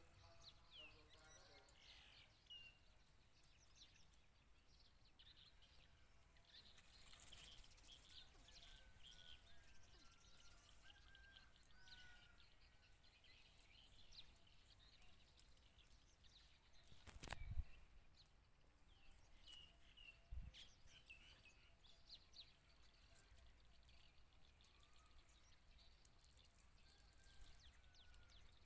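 Near silence: faint outdoor ambience with scattered short bird chirps, broken by one sharp knock about 17 seconds in and a smaller one about 20 seconds in.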